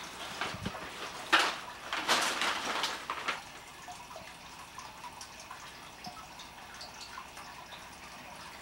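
A paper sack of pine cones tipping over onto carpet: a sharp knock about a second in, then a second or so of paper crinkling and rustling.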